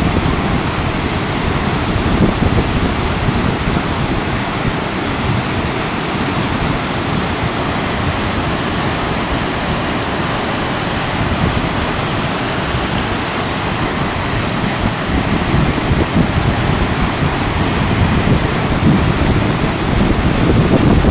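White-water rapids rushing steadily, with large standing waves breaking, and wind buffeting the microphone; the rush grows a little louder near the end.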